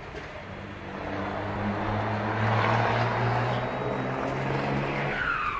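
Car engine running loud at a held, steady rev, with a rush of noise that swells through the middle; the engine note drops away about five seconds in.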